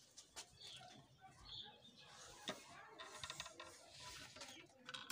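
Faint sounds of chickens moving about in a coop: a few soft clicks and rustling in the sawdust litter.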